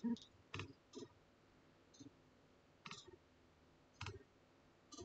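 Faint computer mouse clicks, about seven spread unevenly over five seconds, as a pen colour is picked from an on-screen menu.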